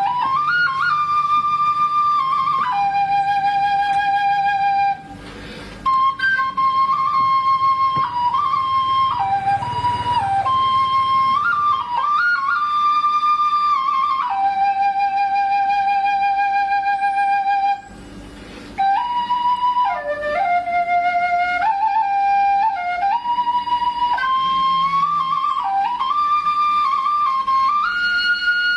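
Background music: a solo flute melody of long held notes with slight vibrato, breaking off briefly about five seconds in and again around eighteen seconds.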